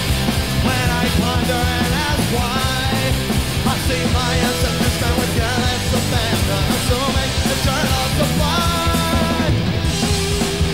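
A rock band playing loud punk-style rock, with guitar and drums and a man singing over them.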